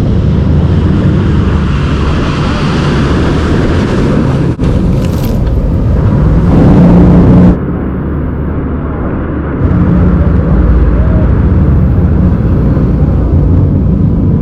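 A steady engine hum under loud rushing noise, breaking off abruptly about four and a half, seven and a half and nine and a half seconds in.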